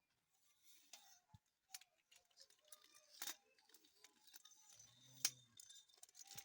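Faint clicks and knocks of a tripod's telescoping legs being pulled out and handled, a few sharper clicks standing out, with a brief low hum about five seconds in.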